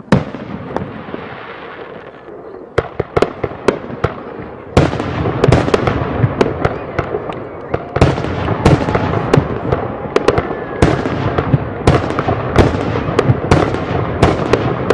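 Aerial fireworks shells bursting: a loud bang right at the start followed by crackling, more scattered bangs, then from about five seconds in a rapid, dense barrage of bangs over continuous crackle.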